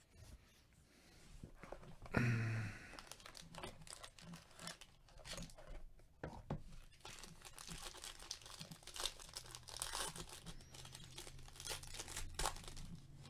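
Foil-wrapped trading card pack handled, crinkled and torn open by hand, giving a dense irregular crackle of foil. A short louder scrape comes about two seconds in.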